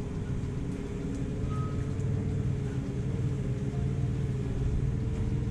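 Forklift engine running steadily as the forklift manoeuvres.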